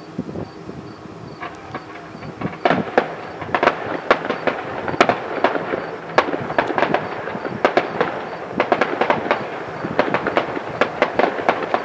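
Fireworks display: a rapid run of sharp bangs and crackles, sparse at first and thickening into a steady barrage a couple of seconds in.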